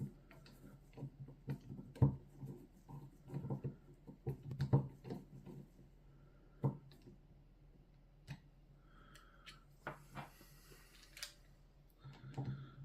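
Scattered light clicks and knocks, irregularly spaced and loudest about two seconds in and again near five seconds, over a steady low hum.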